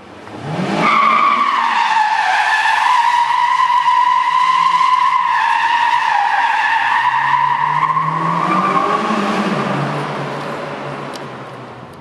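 Honda S2000's tyres squealing in one long skid, a wavering high squeal that builds up in the first second, holds for about ten seconds and fades near the end, with the engine running low underneath.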